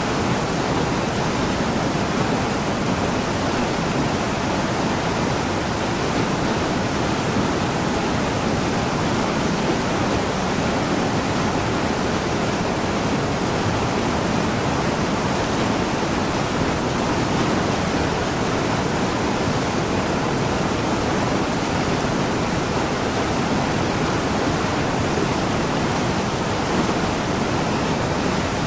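Small waterfall and mountain stream rushing steadily over boulders, an even wash of water noise without pauses or changes.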